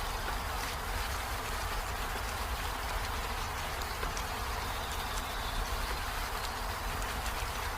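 Steady rain falling on peony flowers and leaves: an even hiss with scattered taps of single drops, and a faint brief high tone about two-thirds of the way in.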